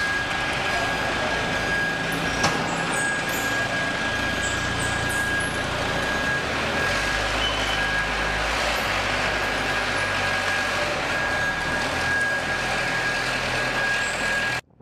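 Aircraft tow tractor running as it drives, a steady mechanical drone with a steady high-pitched whine over it and a single click about two and a half seconds in. The sound cuts off suddenly just before the end.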